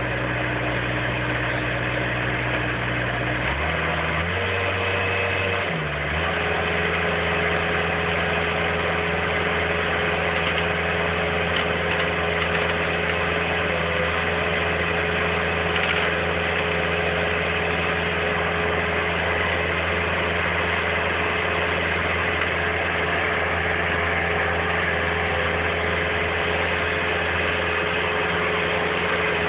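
Bobcat skid-steer loader's engine running steadily; about four seconds in it revs up and then holds at the higher engine speed.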